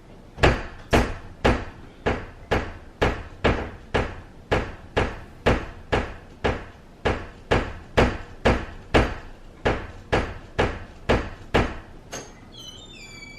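Repeated loud banging, evenly paced at about two blows a second for some eleven seconds, then stopping; a few short high falling tones follow near the end.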